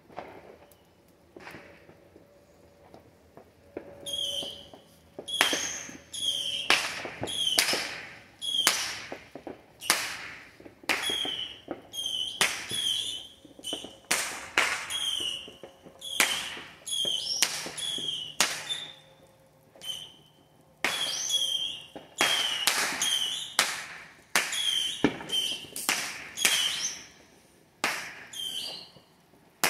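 Fireworks going off: after a few quiet seconds, a long run of about thirty sharp pops at roughly one a second, each with a brief high whistle, pausing once briefly, as from a multi-shot firework cake.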